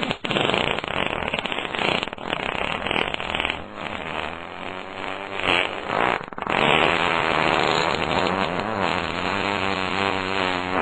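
Fart sound effects: a string of short, broken, sputtering farts, then from about six and a half seconds a long continuous buzzing fart whose pitch wobbles up and down.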